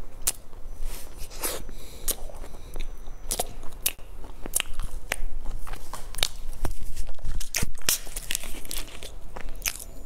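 Close-miked biting and chewing of a chocolate-swirl bread bun, with many sharp, irregular crunchy clicks as its crust gives way.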